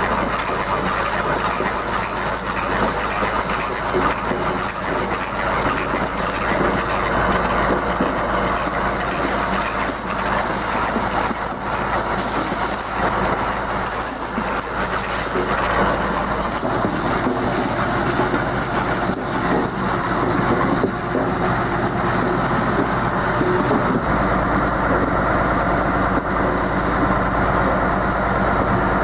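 Tractor-drawn garlic harvester at work: the tractor engine runs steadily under a constant metallic clatter and rattle from the harvester as it lifts the garlic.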